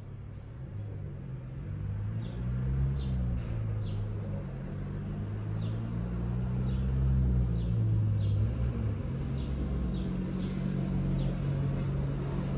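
A low rumble that slowly shifts in pitch and grows louder, with short high bird chirps about once a second.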